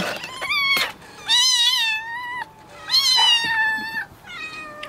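Young kittens yelling: about four high-pitched, wavering meows, two of them drawn out to about a second each.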